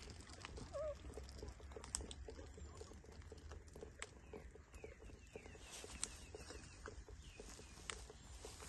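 Faint, brief squeaks from baby monkeys being bathed, with a few light clicks over a low background hum.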